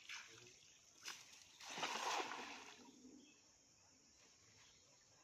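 Hand-thrown cast net landing on the water, a splashing rush about two seconds in that fades over a second, after a brief tick just before.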